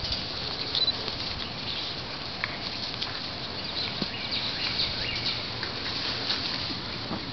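A litter of puppies scuffling about on grass, with small scattered clicks and rustles over a steady outdoor hiss and a few brief high squeaks.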